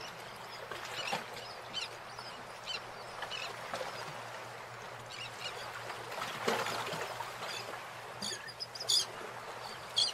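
Birds chirping repeatedly in short, irregular calls over a steady outdoor hiss.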